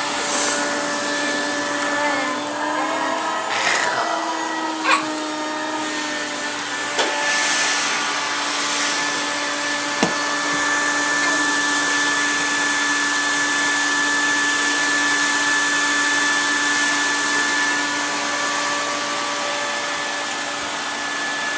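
Vacuum cleaner running steadily over a rug, a steady motor whine over the rush of air, with a few short knocks as it is pushed around.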